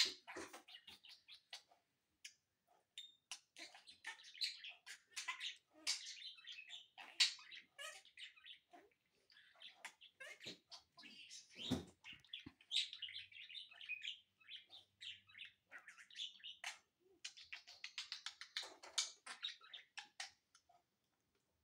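Budgerigar chattering in bursts of chirps and warbles, with sharp little clicks as it pecks at a bare toe. A soft low thump about twelve seconds in.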